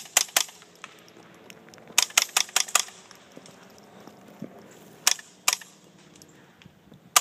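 Shots from a Smith & Wesson M&P 15-22 .22 rifle fired through a water-bottle suppressor, each a short sharp crack. Three come quickly at the start, then a rapid semi-automatic string of about six around two seconds in, then two more about five seconds in. The bottle quiets the shots enough that the action's click stands out.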